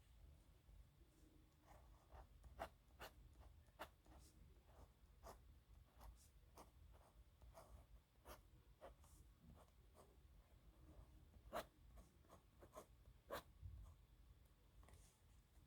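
Nib pen scratching faintly across paper in short, irregular strokes, with light ticks as the nib lifts and touches down.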